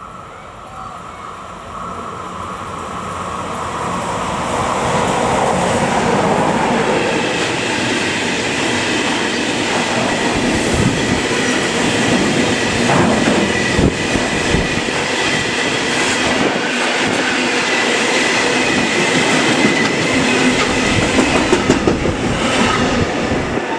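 Train passing close by: the rumble builds over the first few seconds into a loud, steady clatter of wheels on the rails, which stops abruptly near the end.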